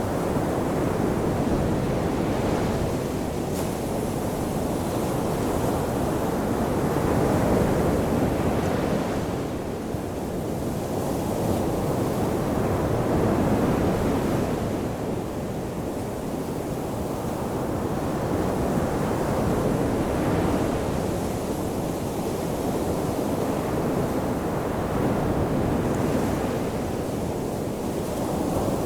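Ocean waves washing onto a shore: a continuous rush of surf that swells and eases every several seconds as each wave breaks and draws back.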